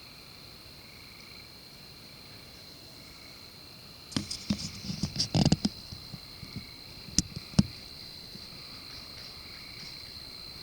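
Steady high chorus of night insects. About halfway through, a short cluster of knocks and clicks breaks in, followed by two single sharp clicks.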